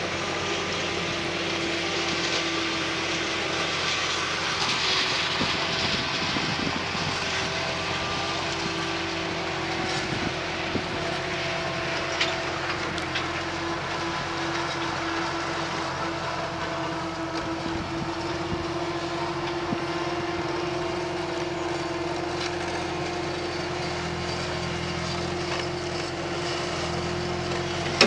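Farm tractor engine running steadily, an even hum that holds throughout, with a short sharp click right at the end.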